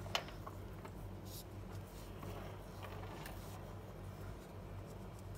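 Faint, soft scratching of a felt-tip marker being stroked across a velvet colouring sheet, with a light click just after the start, over a steady low room hum.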